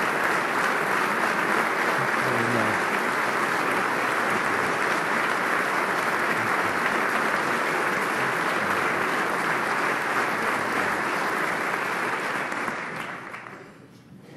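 Large crowd applauding, a standing ovation of dense, steady clapping that dies away near the end.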